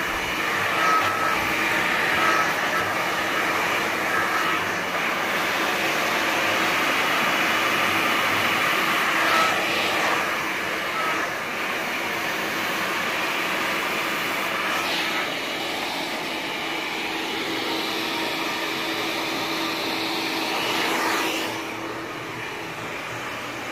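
Handheld hair dryer blowing steadily, a constant rush of air with a steady motor hum, used to dry hair straight over a round brush. The sound drops somewhat near the end.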